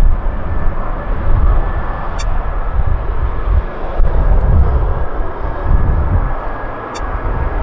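Airbus A300-600 jet airliner on approach: steady jet noise with a faint high whine, over a heavy, uneven low rumble. Two short high ticks come about two seconds in and near the end.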